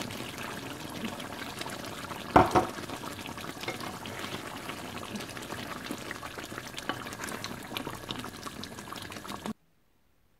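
Kofta curry gravy bubbling and simmering in an aluminium pan, with a wooden spatula stirring through it and one sharp knock about two and a half seconds in. The sound cuts off suddenly near the end.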